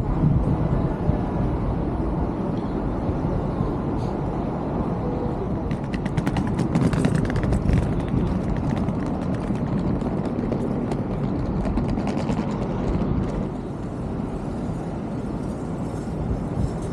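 Steady outdoor city background: a low rumble of traffic and surroundings heard while walking, with a run of light clicks or taps about six to eight seconds in.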